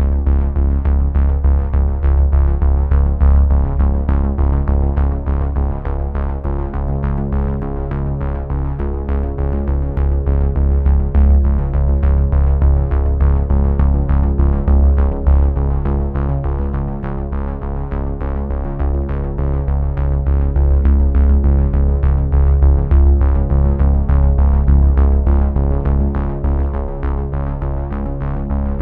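Background electronic music: sustained synthesizer chords over a strong low bass, with a fast, even ticking pulse.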